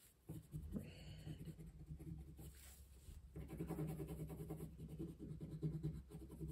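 Rapid back-and-forth colouring strokes scratching on paper, filling in an area with colour.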